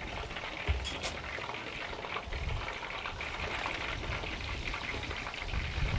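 Chicken wings deep-frying in hot oil in Dutch ovens: a steady crackling sizzle, with gusts of wind rumbling on the microphone now and then.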